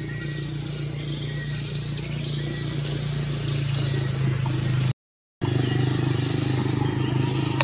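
Steady low motor hum, cut off completely for about half a second about five seconds in, with a few faint clicks.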